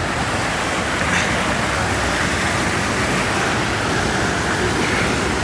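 Steady rush of flowing creek water, an even noise without breaks.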